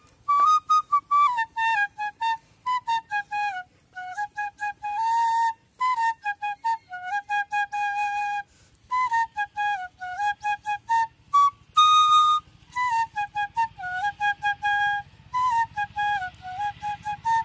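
A homemade side-blown bamboo flute (bansuri) playing a song melody. It moves in quick, separately tongued notes and short runs, with a few longer held notes and brief breaks for breath between phrases.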